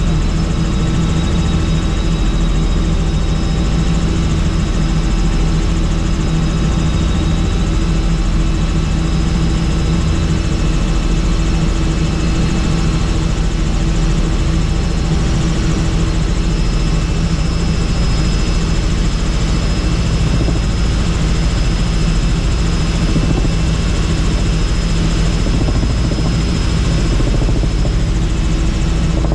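Helicopter in flight: a steady, loud drone of rotor and engine with a faint high whine, unchanging throughout.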